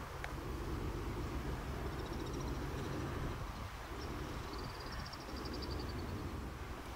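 Wind rumbling on the microphone over a low wash of the sea, with two faint, rapid high-pitched trills, the first about two seconds in and the second near the end.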